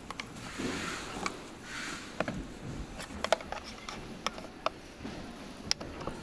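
Irregular sharp clicks and light knocks, with brief rustling near the start, from parts and tools being handled while a children's ride-on UTV is taken apart.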